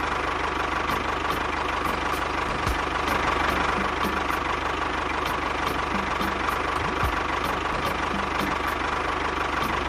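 A small motor or engine running steadily, with a faint regular ticking over a constant hum.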